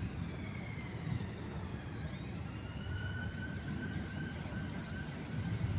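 Steady road traffic rumble, with a siren wailing faintly above it, its pitch sliding slowly up and down.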